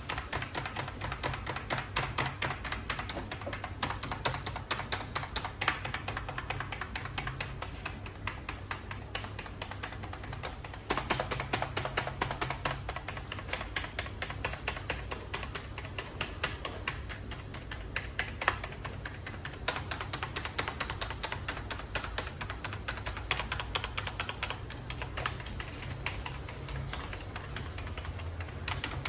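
Computer keyboard being typed on continuously, a rapid, dense stream of key clicks with a short lull about eleven seconds in.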